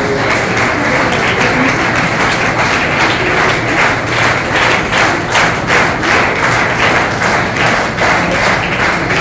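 An audience applauding: many hands clapping at once, steady and dense throughout.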